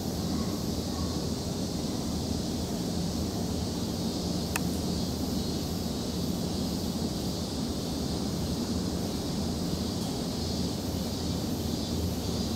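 Steady background hum and hiss with no distinct source, with one faint click about four and a half seconds in.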